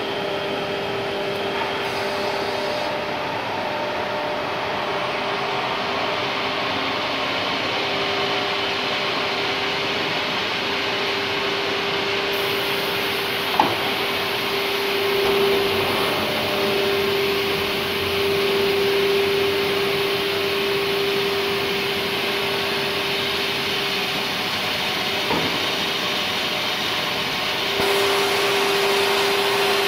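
Nesting CNC wood router running with its vacuum and dust extraction: a steady rushing noise under a constant whine that swells and fades, with a sharp click about halfway through.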